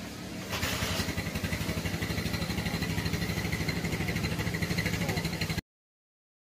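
A small engine running steadily with a rapid, even pulse. It gets louder about half a second in and cuts off abruptly a little after five seconds, leaving silence.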